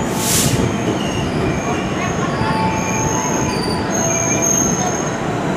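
Electric commuter train moving through the station beside the platform: a steady rumble of wheels on rails, with thin high squealing tones that come and go. A short hiss sounds right at the start.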